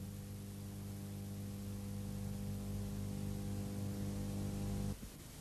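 Steady electrical mains hum, a low buzz with a ladder of overtones, that cuts off suddenly about five seconds in.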